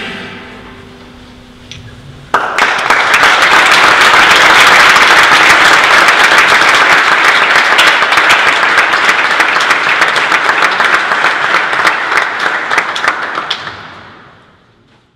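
The last acoustic guitar chord rings out. About two seconds in, applause breaks out suddenly in a church, a dense, steady mass of clapping that fades away near the end.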